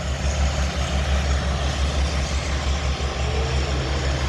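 Steady low rumble of motor vehicles, road traffic or an idling engine, with an even noisy hiss over it.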